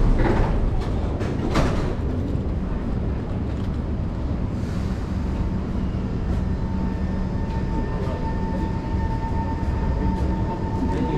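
East-West Line MRT train running in the underground station behind the platform screen doors: a steady low rumble, with a faint steady whine coming in about two-thirds of the way through. Two short knocks in the first two seconds.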